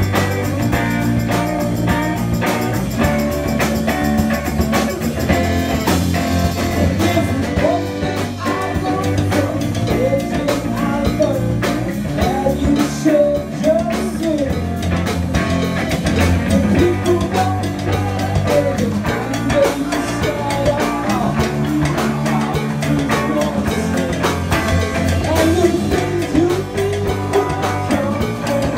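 Live blues-rock band playing an original song: electric guitar, bass guitar and drum kit with a steady beat, and singing at the microphone.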